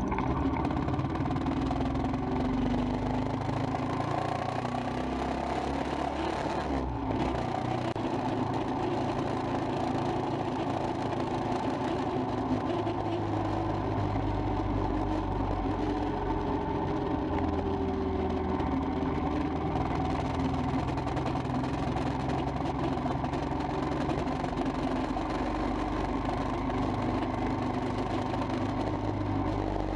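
Royal Enfield Himalayan's single-cylinder engine running steadily while the bike is ridden through traffic, its pitch rising and falling a little with speed, over a steady rush of road noise.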